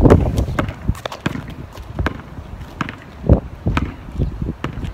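A basketball being dribbled and bouncing on asphalt, with sneaker footsteps from running players: irregular thumps, one to two a second, the loudest near the start and about two-thirds of the way in.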